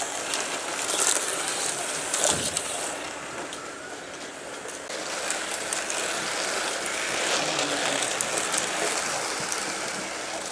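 Several slot cars running around a plastic slot-car track: a steady whirr of small electric motors and the rattle of the cars in the slots, with a few sharp clicks in the first few seconds.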